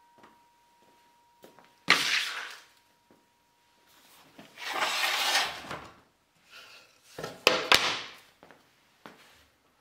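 A Festool guide rail, track saw and wood being handled on a workbench: a knock about two seconds in, a longer sliding scrape in the middle, then a few sharp knocks near the end.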